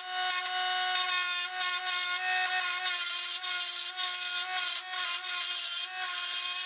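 DC 24V mini bead lathe's motor whining steadily at speed while a chisel cuts a spinning wooden blank, giving irregular rough scraping bursts over the whine.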